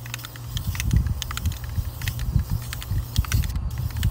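Aerosol spray paint can being sprayed onto a canoe hull, a faint hiss with scattered light clicks, under a low rumble of wind buffeting the microphone that swells several times.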